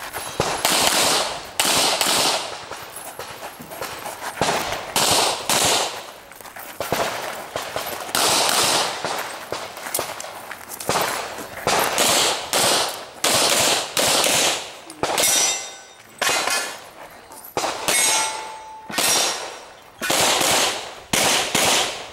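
Handgun shots fired in rapid pairs and short strings with brief pauses between, each crack echoing briefly. In the latter half a steel target rings after being hit.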